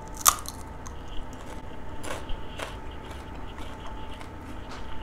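A bite into a thin, oven-baked homemade potato chip: one sharp crunch just after the start, then scattered crisp crunches as it is chewed.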